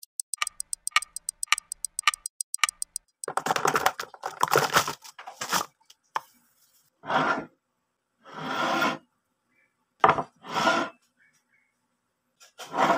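A clock-ticking sound effect, about two strong ticks a second over fast lighter ticking, for the first three seconds. It is followed by a string of short noisy bursts, each under a second long.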